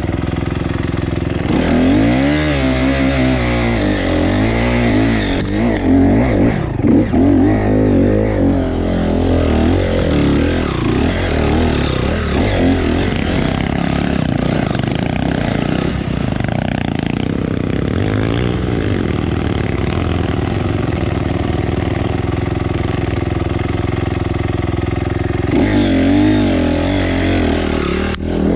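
Dirt bike engine running under way, its pitch rising and falling with the throttle over the first several seconds, then steadier, and varying again near the end.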